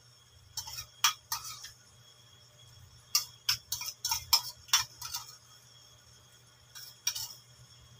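Metal spoon and fork clinking and scraping against a ceramic bowl and plate while the last food is spooned out: a run of sharp clinks in three clusters, the busiest in the middle.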